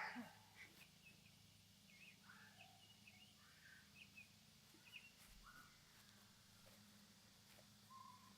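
Faint scattered bird chirps against a quiet outdoor background with a faint steady low hum.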